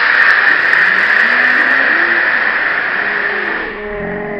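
Model rocket motor burning with a loud, steady hiss that fades away a little before the end as the motor burns out. Onlookers' voices rise under it and come through more clearly once the hiss drops.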